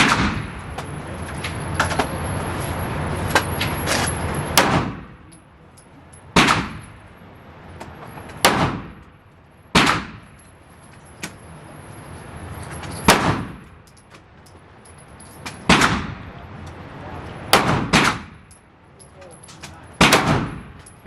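Semi-automatic pistol shots at a shooting range, about ten single sharp reports fired one at a time at uneven gaps of one to three seconds, each followed by a short ringing echo; two come close together near the end.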